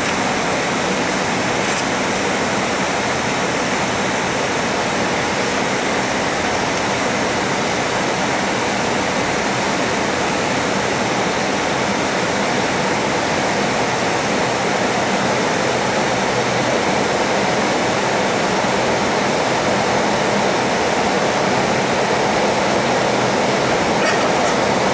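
Steady rushing cabin noise inside an MD-83 airliner climbing after take-off: its rear-mounted Pratt & Whitney JT8D-200 series engines and the air rushing past the fuselage, growing slightly louder near the end.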